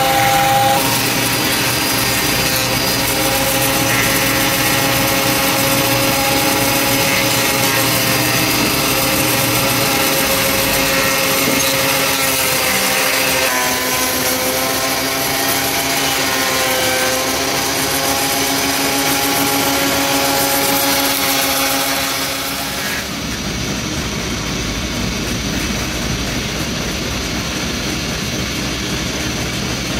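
Ryobi benchtop thickness planer running with a steady motor whine as wooden brush-handle blanks are fed through it. About two-thirds of the way in the whine stops and a duller, even machine noise without it carries on.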